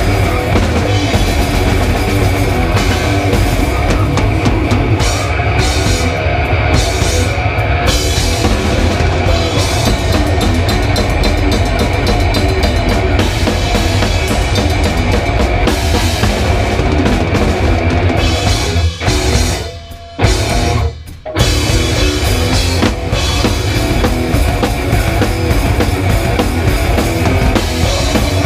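Live heavy rock band playing loud, with the drum kit close and up front: bass drum and cymbals pounding under the band. About two-thirds of the way in the band drops out for a couple of seconds, broken by a single hit, then crashes back in.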